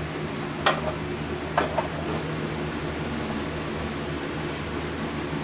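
Steady mechanical hum, like a shop fan running, with two short clicks about a second apart from tools or parts being handled during engine work.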